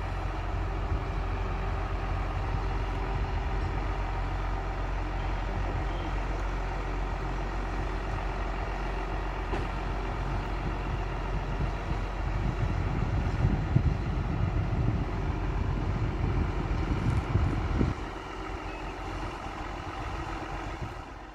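The diesel engine of a rail maintenance vehicle runs as the vehicle moves slowly along the station tracks. The engine gets louder for several seconds in the second half, then drops off suddenly near the end.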